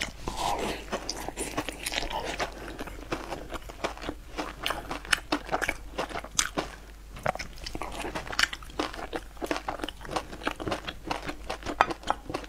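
Close-up chewing and biting, with frequent wet mouth clicks and smacks, as a person eats sticky rice dumplings.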